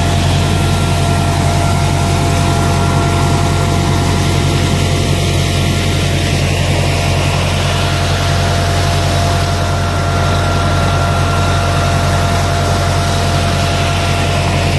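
Tractor engine and the blower fan of a Hasatsan H2200 hazelnut harvester running steadily under load. The sound is a low drone and rushing air, with a steady high whine over it.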